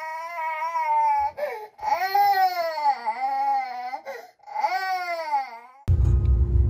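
A baby crying in three long, high-pitched wails with short breaths between them. About six seconds in the crying cuts off and music starts.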